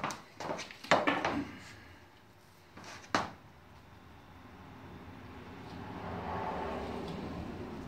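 A few footsteps and knocks in the first three seconds, then gloved hands rubbing vinyl-coated mesh fabric flat onto a glued edge: a soft steady rubbing that grows louder for a couple of seconds and eases near the end.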